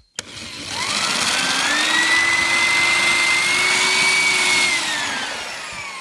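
Electric drill boring a hole through the steel of an old lawnmower blade. The motor spins up, its pitch rising over the first second or two, runs steadily, then winds down near the end.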